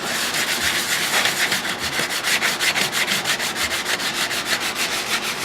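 Sandpaper rubbed by hand in quick, even back-and-forth strokes, several a second, scrubbing old gasket residue off an exhaust flange.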